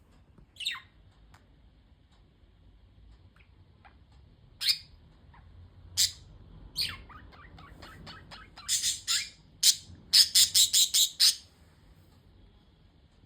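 Budgerigars chirping and squawking in short, sharp calls. A falling chirp comes near the start, the calls grow busier through the middle, and they end in a quick run of about six loud calls.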